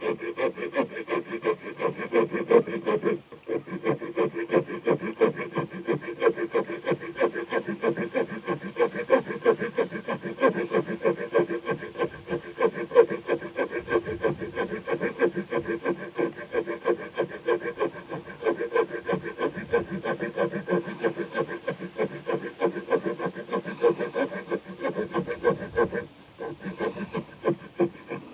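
The small folding saw blade of a Victorinox Farmer X Alox Swiss Army knife cutting through a wooden stick with quick, steady back-and-forth rasping strokes. There is a brief pause about three seconds in, and the strokes ease off near the end.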